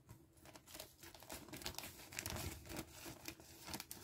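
Clear plastic bag of cardboard puzzle pieces crinkling as it is handled and cut open with scissors: soft, irregular crackling.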